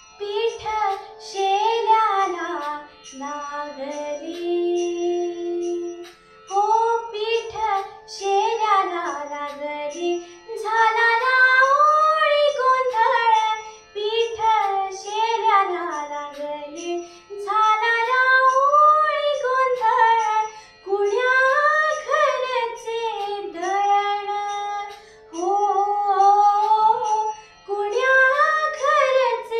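A young girl singing a Marathi devotional song (bhakti geet) solo, in long gliding phrases with brief pauses for breath, over a steady drone accompaniment.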